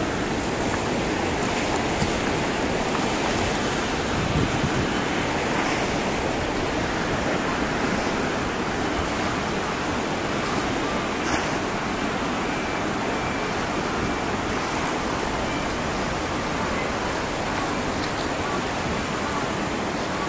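Tsunami surge flooding into a fishing harbour: steady rushing of turbulent water, with no let-up.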